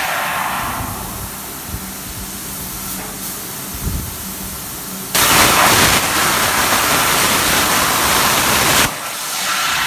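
CNC plasma cutter running, with a steady hiss and a low hum. About five seconds in, the plasma torch's much louder hiss starts suddenly, then cuts off sharply nearly four seconds later.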